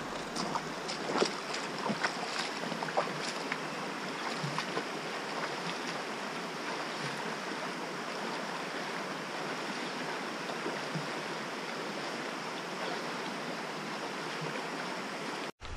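Shallow creek water rushing steadily over rocks, with a few splashes in the first few seconds as a hiker wades through in his shoes. The sound cuts off suddenly just before the end.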